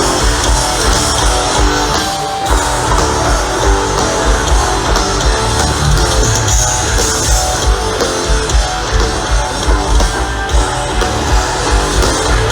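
Loud heavy rock music with electric guitar over a steady drum beat.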